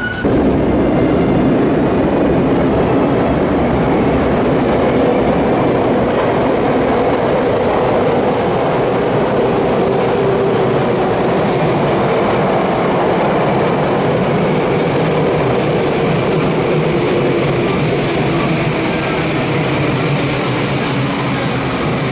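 Electric train running on the track: a steady, loud rumble of wheels on rails that holds for the whole stretch.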